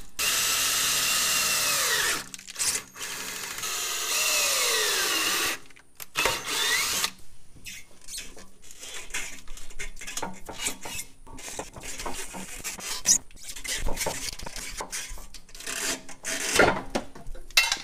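Cordless drill boring into the old rubber of a car's trailing arm bushing in a few short runs, its whine dropping in pitch each time it spins down. From about seven seconds in, irregular scrapes, clicks and knocks of hand tools working at the bushing.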